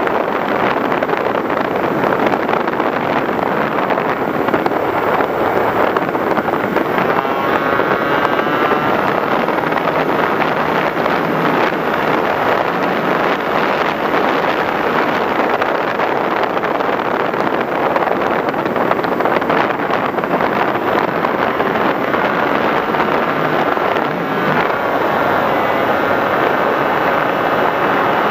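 Electric motor and propeller of an FPV Raptor model plane running under a loud, steady rush of wind noise. A motor whine rises in pitch about 7 seconds in and again from about 25 seconds in.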